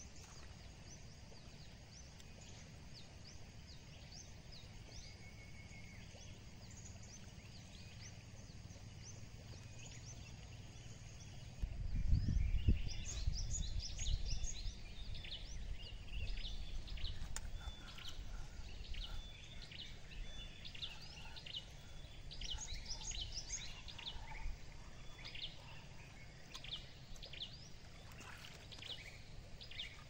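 Birds chirping with many short, high calls, growing busier about twelve seconds in, over a low rumble that starts at the same moment and is loudest for the next few seconds.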